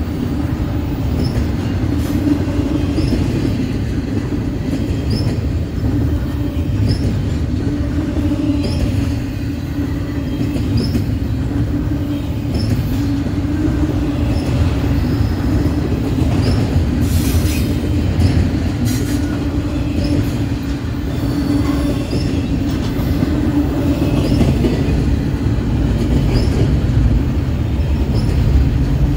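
Freight train rolling past: a steady rumble of steel wheels on the rails, with faint short high clicks repeating about once a second.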